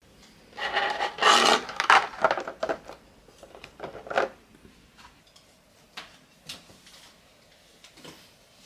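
Clear acrylic keyboard being handled and set down on a table: a burst of hard plastic rattling and knocking in the first few seconds, then a few scattered light taps and clicks.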